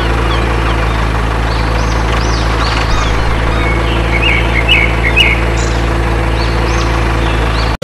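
Tractor engine running at a steady low drone, with birds chirping over it; a run of chirps comes around the middle.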